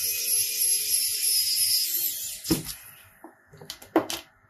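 A small power tool's motor runs with a high hissing whine, then stops about two and a half seconds in. A few sharp knocks follow.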